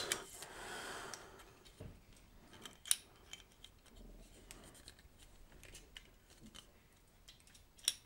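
Quiet handling of a Røde PSA1 microphone boom arm: small metallic clicks and rattles as its joints are moved, with a sharper click about three seconds in and another near the end.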